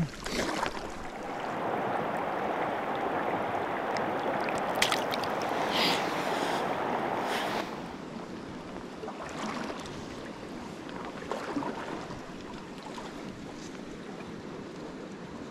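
Stream water flowing steadily, louder for the first half and then dropping to a quieter, even rush about halfway through. A few light knocks sound near the middle.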